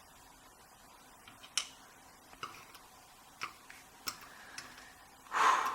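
Scattered small clicks and taps, about five spread out, as the parts of a disassembled Schlage Primus lock cylinder are handled, with a short burst of noise near the end.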